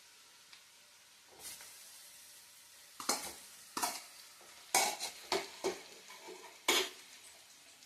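A metal spoon scraping and stirring in a hot pan, about seven sharp strokes, over a faint sizzle of food cooking in oil.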